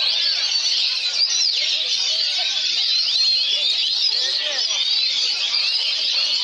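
Dense chorus of caged songbirds singing at once, with many overlapping high whistles, trills and chattering phrases. An Oriental magpie-robin (kacer) sings among them.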